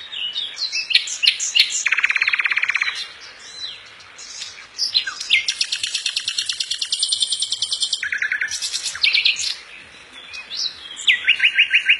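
Birds calling, with quick sharp chirps and several rapid trills: one about two seconds in, a longer, higher one through the middle, and another starting near the end.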